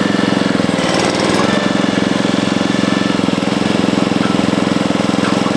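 Portable bandsaw mill's engine running steadily under power, a loud, even rhythmic drone.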